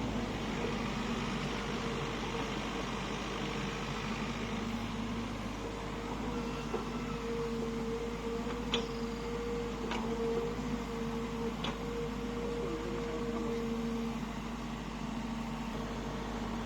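Mini excavator's diesel engine running at a steady hum with a constant tone, and three short sharp clicks in the middle stretch.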